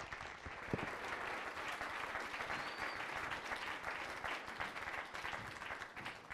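A seated audience applauding, a steady patter of many hands clapping that begins to thin near the end.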